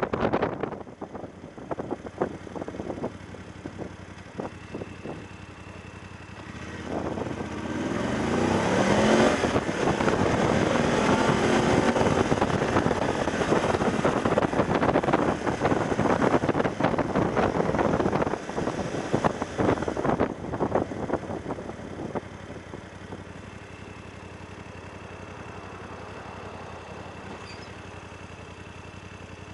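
BMW F750GS parallel-twin engine accelerating, its pitch rising as it pulls away about a quarter of the way in, with heavy wind noise on the camera once the bike is at speed. About two-thirds of the way through, the bike slows and the sound settles to a quieter, steady engine note.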